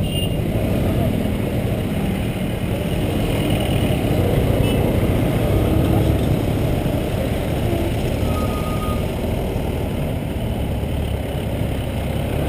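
Riding a motor scooter in traffic: a steady rumble of the scooter's engine, road and wind noise, mixed with other scooters and motorcycles around it. A short, faint beep comes about eight seconds in.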